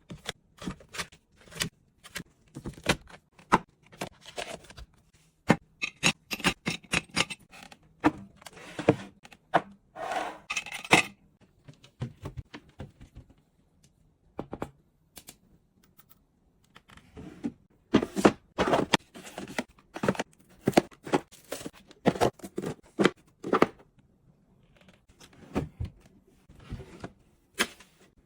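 Small objects being handled and set down on a hard surface, making a string of sharp clicks, taps and knocks mixed with scraping. There is a denser run of scraping about a third of the way in, a lull in the middle, then another busy run of taps.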